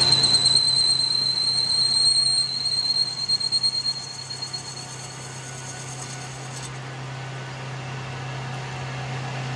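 A high-pitched mechanical whine that fades away over the first four seconds, over a steady low hum.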